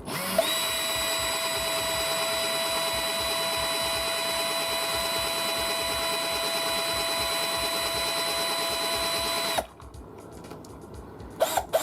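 Small Ozito hobby drill spinning up and running at a steady high-pitched whine for about nine and a half seconds, then cutting off suddenly. A few short clicks follow near the end.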